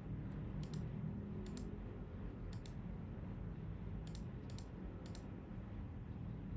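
Light plastic clicks, several in quick pairs, over a low steady hum, as small 3D-printed plastic parts are handled.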